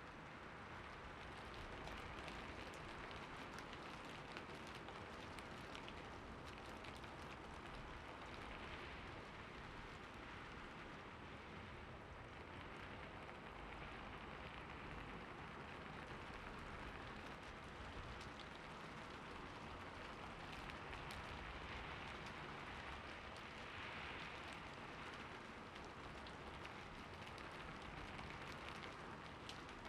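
Light rain falling steadily, an even hiss with many fine drop ticks that swells and eases slightly every few seconds.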